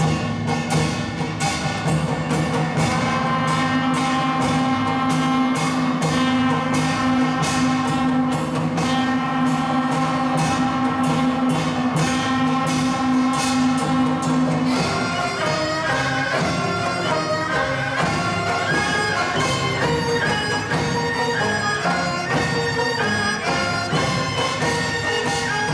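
Military band music blending Korean traditional melody and rhythm with Western winds and brass: a steady beat under held chords, then about fifteen seconds in a busier, quick-moving wind melody takes over.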